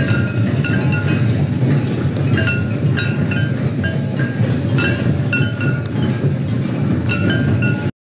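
Santali folk dance drumming: several barrel hand drums played together in a steady, busy rhythm, with short bright ringing notes repeating over it about twice a second. The sound cuts out abruptly near the end.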